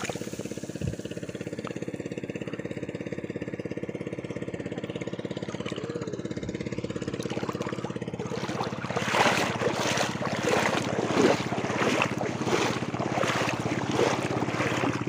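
A small engine running steadily throughout, with irregular splashing and sloshing of shallow water from about eight seconds in.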